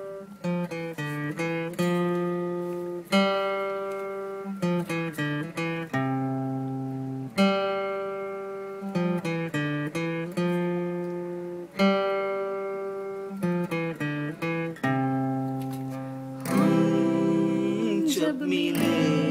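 Background music: an acoustic guitar picks single notes and chords, each note ringing out and fading. A singing voice joins near the end.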